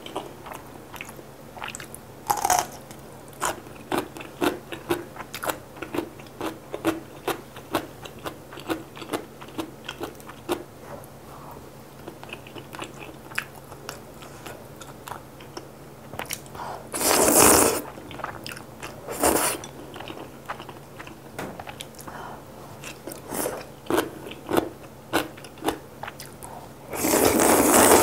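Close-miked eating of noodle soup: a steady run of small wet chewing clicks, with a long loud slurp about two thirds of the way through and another near the end as broth is sipped from the bowl.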